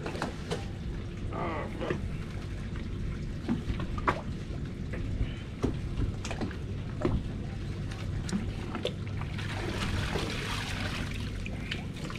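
Water sloshing and pouring over a steady low hum, with scattered light knocks; the water sound is strongest about ten seconds in.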